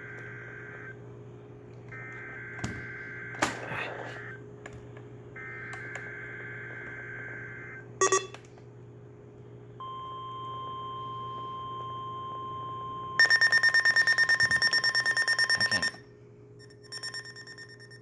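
NOAA weather radio receiving an EAS Required Weekly Test. Three short bursts of screeching SAME digital header data come first, then a steady 1050 Hz attention tone lasts about three seconds. The radio's loud, rapidly pulsing alert beep follows, and it beeps again near the end.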